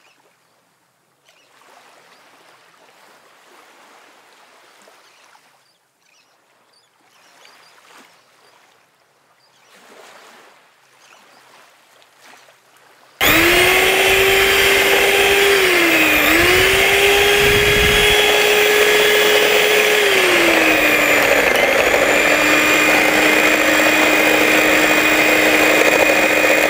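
Faint scraping of a spoon working malai through a mesh strainer. About halfway through, an electric hand mixer switches on and runs loudly, its beaters whipping the malai in a glass bowl to thicken it. The motor pitch dips twice and settles lower near the end.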